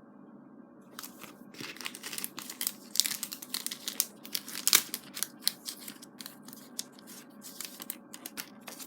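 Packaging crinkling and rustling as it is handled, a quick irregular run of crackles that starts about a second in.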